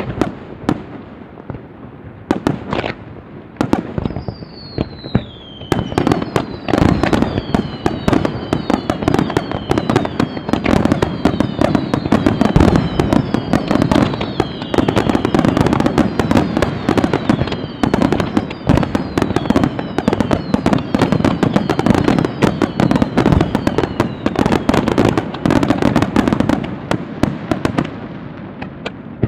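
Fireworks barrage: rapid, overlapping shell bursts, getting much denser about six seconds in, with many falling whistles layered over the bangs through most of it, easing off near the end.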